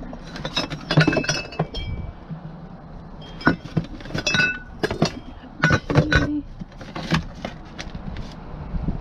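Small glass decorations clinking and knocking against each other in a cardboard box as they are rummaged through by hand: a string of irregular sharp clinks, some with a short ringing tone.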